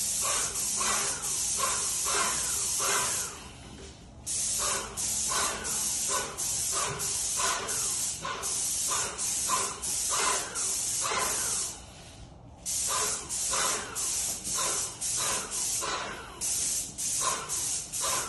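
Paint spray gun hissing as cabinet doors are sprayed, in quick back-and-forth passes that pulse about twice a second. The spray stops briefly twice, about a fifth and two-thirds of the way through.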